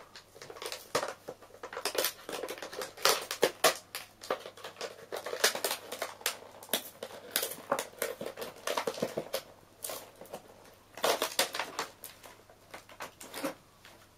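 Plastic and cardboard toy packaging being torn and pulled open by hand, crinkling and crackling in irregular bursts.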